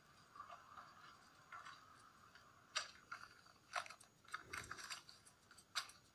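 Paper packaging crinkling and crackling in the hands as a padded envelope is handled and opened, in scattered sharp crackles, with a soft thump about four and a half seconds in.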